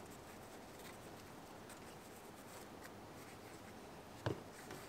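Faint scratchy strokes of a paintbrush working oil onto a leather knife sheath, with a single sharp knock about four seconds in.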